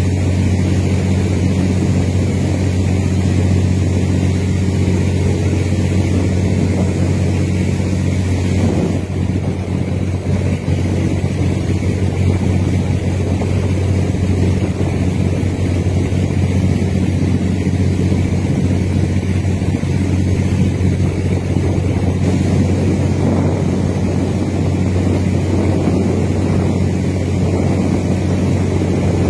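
A boat engine running with a steady low hum, with wind buffeting the microphone.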